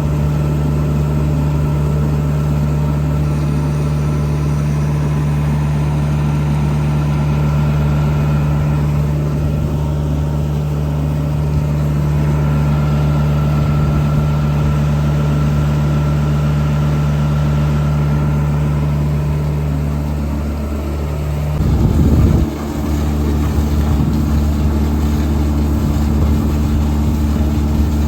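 A heavy machine engine idling steadily with a deep, even hum. About three-quarters of the way through it briefly surges louder, and its note settles slightly differently afterwards.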